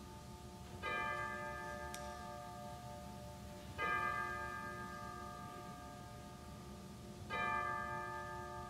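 Church bell tolling: three strikes about three seconds apart, each ringing on and fading slowly into the next.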